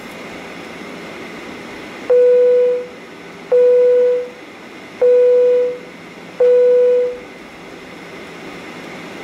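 Four identical single-tone chimes of an airliner's cabin signal, about a second and a half apart, over the steady hum of a Boeing 737-800 cabin taxiing. The chimes are the loudest sound; the cabin hum stays even throughout.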